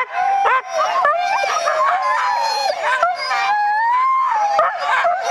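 A team of harnessed Siberian husky sled dogs howling and yipping together, many voices overlapping. Long wavering howls mix with short sharp yips, and one howl rises and holds a little before the middle.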